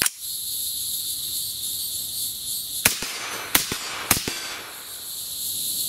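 Three suppressed rifle shots, about half a second apart, from a Lone Star Armory TX-15 AR-15 in 6.5 Grendel (264 LBC) with the lightest H buffer and white spring, cycling through the magazine without any malfunction. Fainter knocks follow the second and third shots, and a sharp click comes right at the start. Steady insect buzzing runs behind it all.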